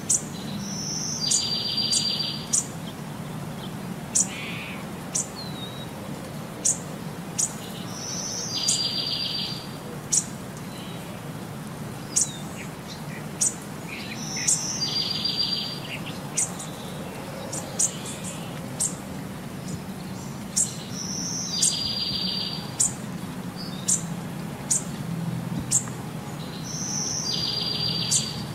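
Bird-song ambience on a loop: the same short trilled call comes back about every six to seven seconds, with many brief high chirps between, over a steady low hum.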